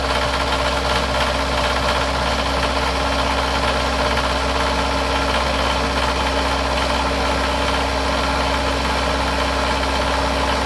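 Perkins 4.108 four-cylinder diesel engine in an 825 Bobcat skid steer running steadily at idle. It is a worn, low-compression old engine that the owner says still runs, barely.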